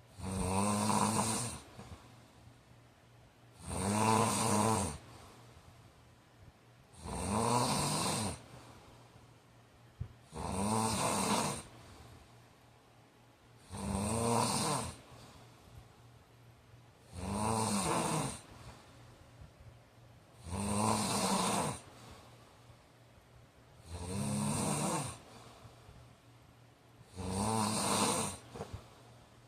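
A man snoring in his sleep: nine loud, regular snores about every three and a half seconds, each lasting just over a second, with a pitch that rises and then falls.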